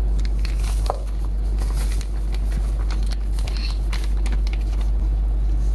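Dry cookie mix poured into a stainless steel bowl, with light pattering and the scrape of a silicone spatula against the bowl, over a steady low rumble.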